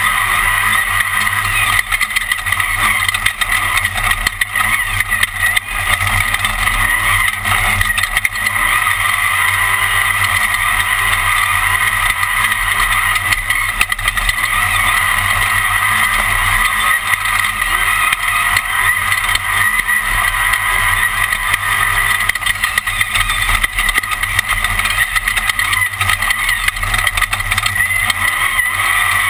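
Onboard sound of a Class 1 unlimited desert race car's engine running hard at speed on a qualifying lap, a loud, steady drone with little change in pitch.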